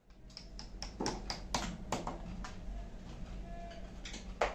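Irregular sharp taps and clicks of hardware and a plastic speaker being handled against a wall while it is mounted, most of them in the first two seconds and a louder knock near the end. A low steady hum runs underneath.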